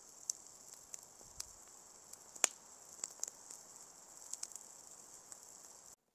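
Campfire crackling: irregular sharp pops and snaps over a steady hiss, the loudest pop about two and a half seconds in. It cuts off abruptly near the end.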